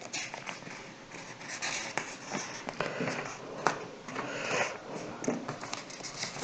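Soft rustles and a few brief clicks close to the microphone, with small room tone in between.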